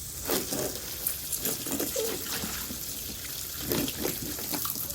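Water running steadily, like a tap, with a few faint short voice-like sounds over it.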